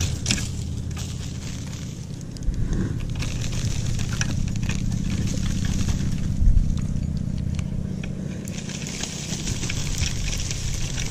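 Casting and reeling with a spinning rod and reel: light clicks and scrapes from the reel and rod, with a short knock about two thirds of the way through, over a steady low rumble.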